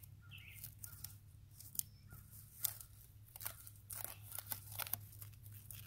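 Gloved hands working potting mix and petunia foliage while planting a container: an irregular run of crisp crackles, scrapes and rustles as the soil is pressed in around the plant.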